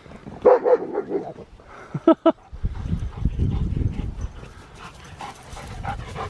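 Dogs vocalising in play: a short whining call about half a second in and a few quick sharp yelps around two seconds in, then a steady low rumbling noise.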